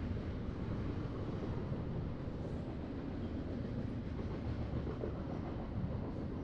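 Freight train rolling past, a steady noise of railcars and wheels on the track.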